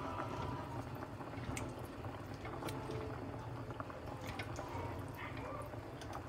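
Wooden spoon stirring thick tomato meat sauce in a stainless steel pot: wet squelching with scattered light clicks, over a steady low hum.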